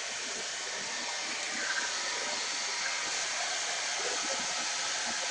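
Hand-held blow dryer running steadily, a constant hiss of blowing air as hair is dried and straightened.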